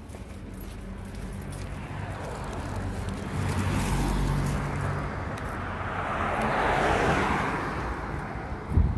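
A car passes close by on the road: engine and tyre noise swells over several seconds and eases off near the end. A short knock comes just before the end.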